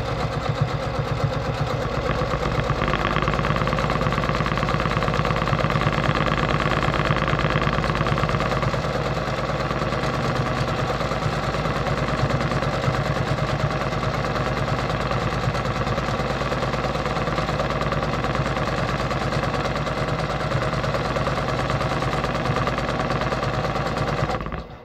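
Brother PQ1500SL straight-stitch sewing machine running at speed while free-motion quilting, a fast steady stitching rhythm that stops just before the end.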